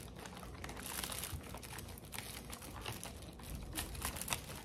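Packaging crinkling and rustling as it is handled, with scattered small sharp clicks.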